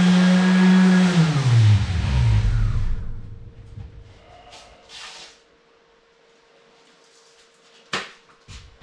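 Electric orbital sander running against a plywood board, then switched off about a second in, its motor hum falling in pitch as it spins down over the next two seconds. After a quiet stretch with faint handling rustles, two sharp clicks come near the end.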